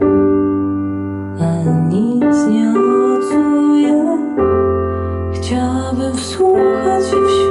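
Music played back through a Technics SU-7700K stereo amplifier and speakers: a slow song with keyboard chords, a bass line and a sung melody, with a change of chord about halfway through.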